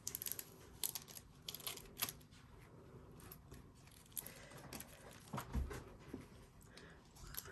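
Faint, scattered light clicks and rustles of gloved hands handling a metal sublimation bookmark and peeling its paper off after pressing.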